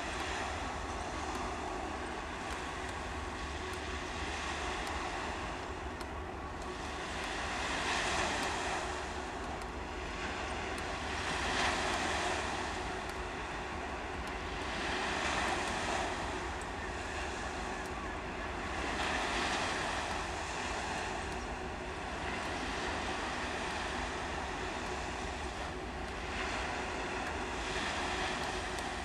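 Small waves washing onto the shore, a broad hiss that swells and fades about every four seconds, over a steady low rumble.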